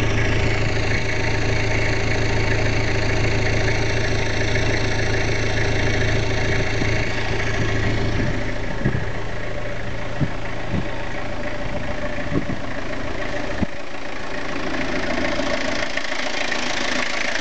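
Toyota Hilux 2L 2.4-litre four-cylinder diesel engine idling steadily, with a low even hum. A few short sharp clicks come through about nine to thirteen seconds in.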